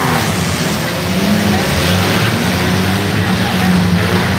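Demolition derby cars' engines running and revving on the dirt track, the engine pitch rising and falling.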